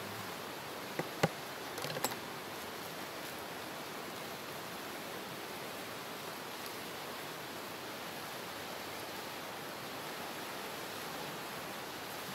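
Steady rushing noise of a wide, fast river. A few sharp clicks come about one and two seconds in, the loudest a little after one second.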